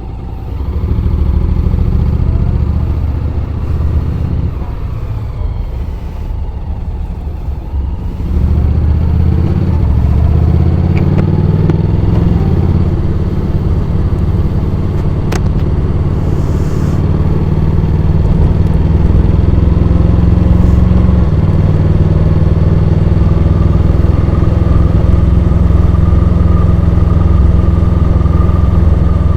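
Honda X-ADV 750's parallel-twin engine heard onboard while riding: it pulls away about a second in, eases off for a few seconds, picks up again and then runs steadily at speed.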